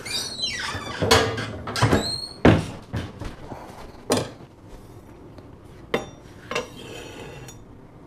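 Kitchen knife and utensils knocking on a wooden cutting board: a handful of irregular knocks, loudest in the first three seconds, with a short metallic ring about two seconds in.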